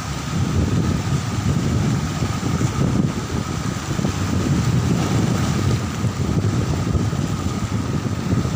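Strong wind buffeting the microphone, with small waves washing over the rocks at the shoreline.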